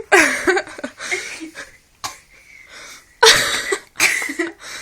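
A person coughing: two harsh coughs about three and four seconds in, after a brief vocal sound at the start.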